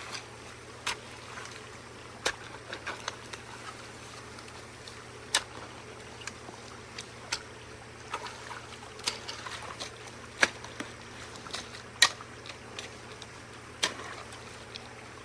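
Creek water running and trickling steadily, with irregular sharp cracks and knocks every second or two, the loudest about twelve seconds in.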